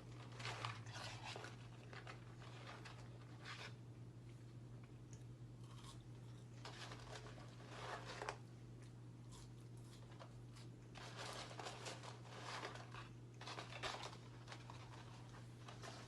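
Eating sounds: chewing with the crinkle and rustle of fast-food paper packaging, in short irregular bursts.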